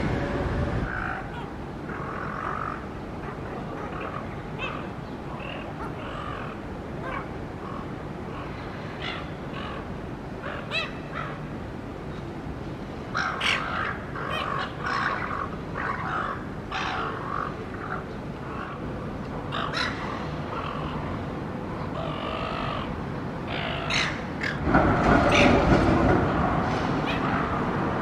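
Harsh bird calls, short and scattered, bunched about halfway through and again near the end, over steady street traffic noise that swells louder near the end.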